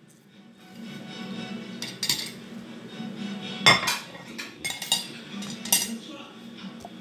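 Ceramic plates and a spoon clinking and clattering as dishes are gathered and stacked on a table, with several sharp clinks, the loudest about three and a half seconds in.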